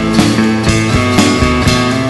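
Rock band recording: guitars over upright bass, with the drum kit hitting a steady beat about twice a second.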